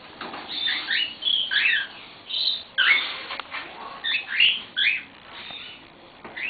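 Pet bird calling while it is taken from its cage and held: a rapid run of short, high calls that bend in pitch, mostly in the first five seconds, with one more near the end.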